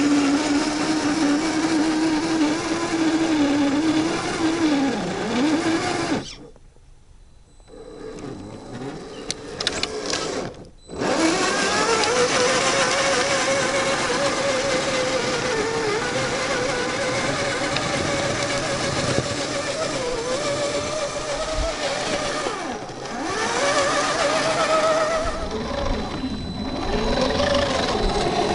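Electric motor and gear drivetrain of a 1/10-scale RC crawler whining as it climbs a dirt slope, the pitch rising and falling with the throttle. About six seconds in it goes quiet for several seconds, with a few light clicks, then the whine starts again.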